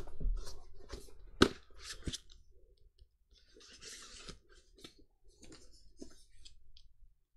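Two hardcover books handled and turned over in the hands: a few taps and knocks of the covers, the loudest about a second and a half in, then a short rustle and scattered small clicks.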